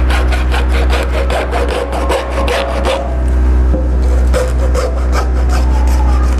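Fine-toothed mini hacksaw from a Black+Decker 108-piece kit cutting through a white plastic pipe with quick back-and-forth strokes. The strokes grow lighter about halfway through.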